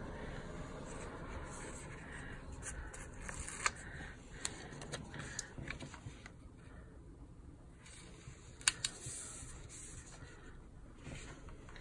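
Quiet paper handling as a large sticker is positioned and pressed down onto a planner page: soft rustling with a few sharp clicks, the two loudest about four seconds in and again near nine seconds.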